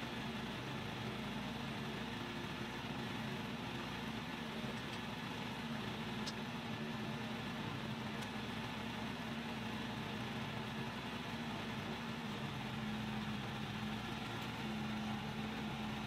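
Woodland Mills HM130 Max sawmill's gas engine idling steadily between cuts, the blade not cutting.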